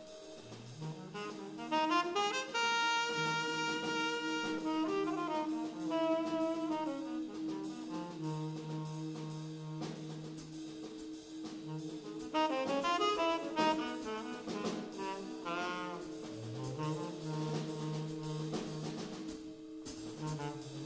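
Live jazz large ensemble playing: saxophone to the fore over sustained horn and reed chords, with ascending lines about a second in and again near the end.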